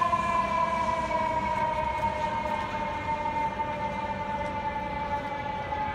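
A fire engine's siren sounding one long steady tone that slowly falls in pitch as the truck pulls away down the street, over a low rumble of traffic.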